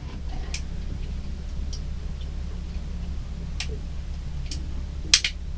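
Scattered sharp clicks from a snap-off utility knife being handled, with a louder, sharp snap near the end as a dull blade segment is broken off to expose a new edge. A steady low hum runs underneath.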